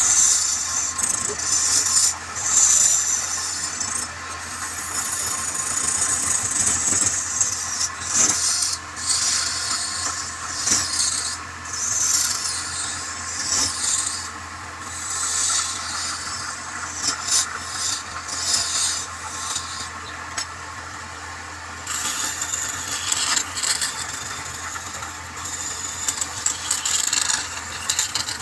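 Wood lathe running with a steady hum while a tool scrapes against the spinning wood in irregular, uneven bursts.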